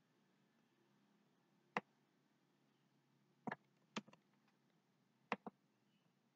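Computer mouse clicking as text is selected on a web page: about six sharp single clicks, some in quick pairs, against near silence.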